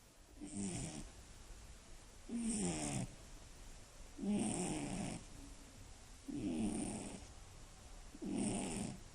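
Scottish Fold cat snoring in its sleep, five rasping snores about two seconds apart with quiet breathing in between.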